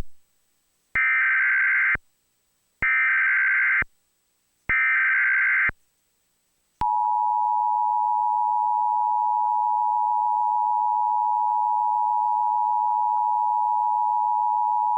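Emergency Alert System tones from a Trilithic EASyCAST encoder, sending a National Periodic Test. First come three one-second bursts of the SAME header, a shrill digital data warble that encodes the alert. About seven seconds in, the steady EAS attention signal starts: a harsh two-tone alarm of 853 and 960 Hz that comes before the spoken alert message.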